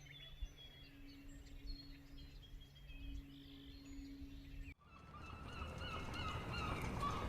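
Birds calling at dusk: faint high chirps at first, then, after an abrupt cut about two-thirds of the way in, louder wavering calls repeated in quick succession.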